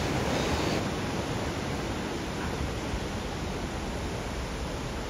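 Steady rushing noise of wind and breaking ocean surf on a beach, with the wind buffeting the microphone.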